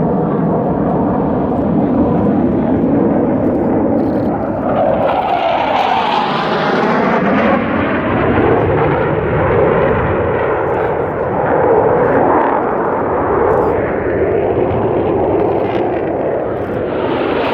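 Military jets flying low past over a runway in succession, a continuous jet roar that swells and sweeps as each aircraft passes, loudest about a third of the way in and again near the end.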